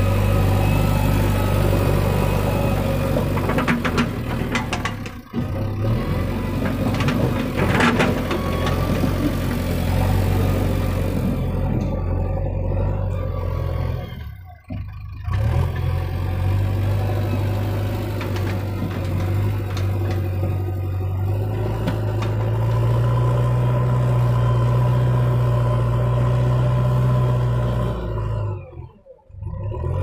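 JCB 3DX backhoe loader's diesel engine running under load, its pitch stepping up and down as it is revved. A few metallic clanks come about 4 to 8 seconds in, and the sound breaks off briefly three times.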